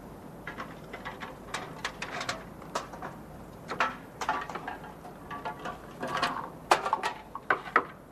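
A run of irregular clattering knocks and clicks, as of objects being handled, growing louder and busier near the end.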